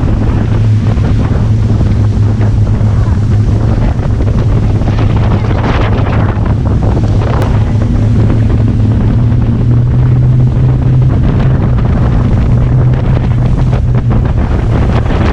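Heavy wind buffeting a GoPro camera's microphone while riding, over a steady engine drone.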